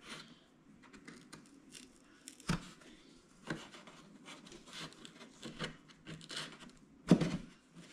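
A thin metal blade scraping and rubbing in the seam between a balsa hatch and fuselage, prying at the hatch, with a few short knocks, the loudest near the end.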